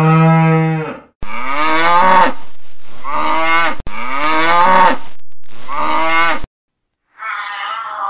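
Domestic cattle mooing: about five long, drawn-out moos in a row, the recording cutting in and out abruptly between them. A short gap follows about six and a half seconds in, then a different, rougher sound starts near the end.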